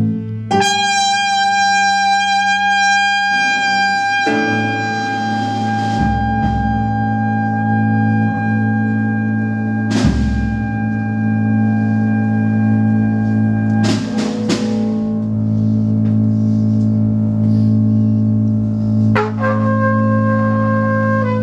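Slow, sparse jazz: long held trumpet notes over a sustained low drone, with a drum and cymbal stroke about every four seconds.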